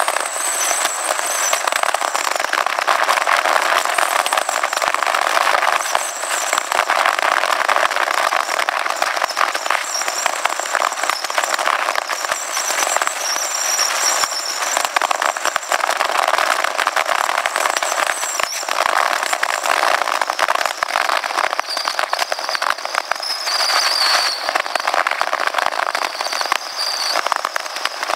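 Motorcycle riding at road speed: steady wind rush and buffeting on the microphone, with a thin, wavering high whine over it.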